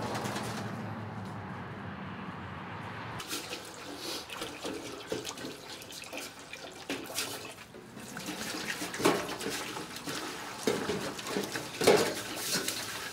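Water poured from a large plastic water jug into a stainless steel sink, gurgling and splashing, with two louder knocks in the second half. Before the pouring starts, a steady rush of noise for about the first three seconds.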